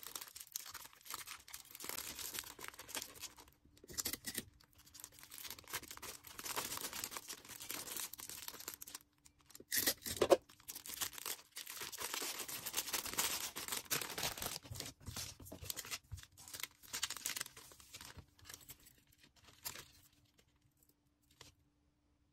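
Packaging being handled while an order is packed: irregular crinkling and tearing, with one louder sharp crackle about ten seconds in, thinning out near the end.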